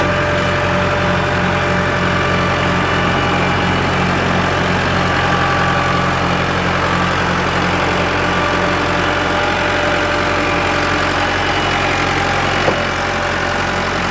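Diesel tractor engine running steadily with an even low throb. There is one sharp knock near the end.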